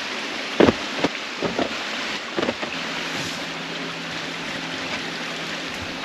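Handheld shower head spraying water into a portable plastic half-bath tub, fed by an electric water pump: a steady hiss of spray, with a few knocks in the first seconds and a low steady hum joining about halfway through.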